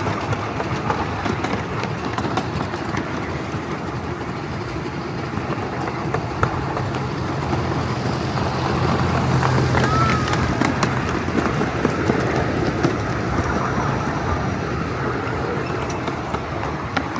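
Ride-on 7¼-inch gauge miniature train running along the track: a steady rumble with a few scattered clicks, with a low hum that swells about halfway through.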